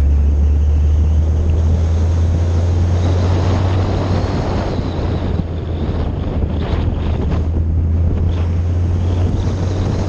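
Wind rumbling steadily over the microphone of a camera mounted on a moving car, over the driving noise of a Mazda RX-8 with a swapped-in 13B-REW rotary engine.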